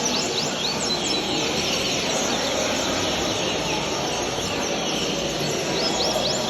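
Coleiro (double-collared seedeater) singing: a run of quick, high whistled notes that slide up and down, over a steady rushing background noise.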